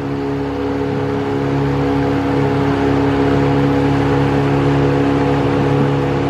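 Boat's outboard motor running steadily under way, a constant engine hum with wind and water rushing over it. It swells in level over the first second, then holds.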